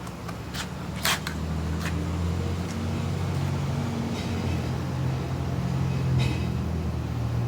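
A steady low motor hum, with a couple of short clicks over it.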